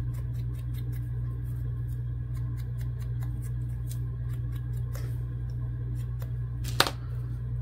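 Ink blending tool dabbed and rubbed along the edge of a paper pocket: a run of light quick taps over a steady low hum, then one sharper knock near the end.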